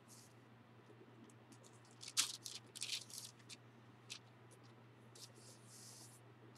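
Paper pages of an old Oxford Bible rustling and crinkling as they are handled and turned: a cluster of short crisp rustles about two seconds in, then a softer, longer rustle near the end, over a low steady hum.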